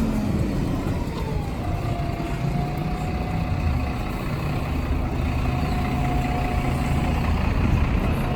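Street traffic: a heavy vehicle's engine running close by over a steady rumble of cars, with a thin high whine that slides down a little after a second in and holds, then comes back later.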